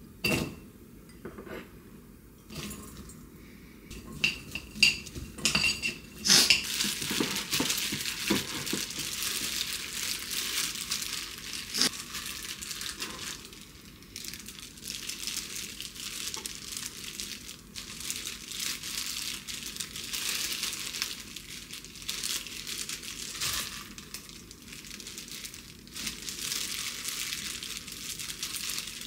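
Chopped onion and paprika tipped into a glass mixing bowl, with a few sharp clinks of a wooden spoon against the glass, then a steady crinkling of disposable plastic gloves as the vegetables are mixed by hand and raw chicken breast is handled.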